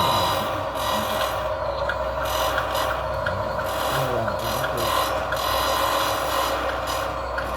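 Lesu Hino 8x8 RC dump truck's drivetrain whirring and rasping as the truck crawls up onto a lowboy trailer.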